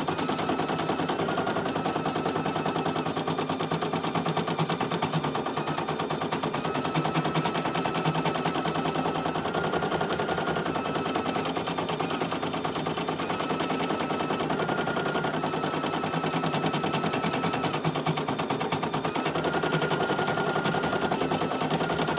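Brother PE800 single-needle embroidery machine stitching at speed: a fast, even clatter of the needle, with a high hum that shifts pitch now and then.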